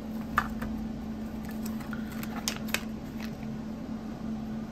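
Hands handling small knife parts and a clear plastic zip bag of bearings: a few light clicks and faint rustling, the sharpest click about half a second in and two more close together near the middle, over a steady low hum.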